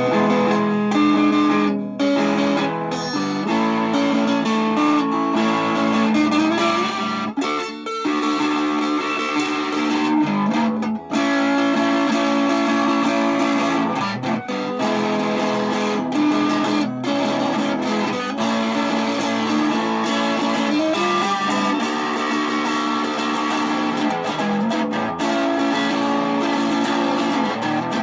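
Guitar music: a plucked guitar playing a continuous run of changing notes.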